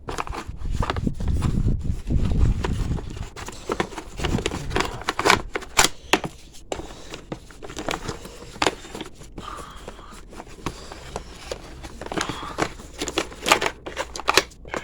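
Hands working on a dirt bike's plastic rear bodywork: scattered sharp clicks and knocks with plastic rustling, and a low rumbling handling noise a second or two in.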